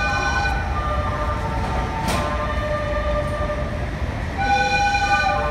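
The musical horn of a JR 485-series train playing its melody as the train pulls into the station. Two phrases of stepped horn notes, the second starting about four and a half seconds in, over the low rumble of the approaching train, with one sharp click about two seconds in.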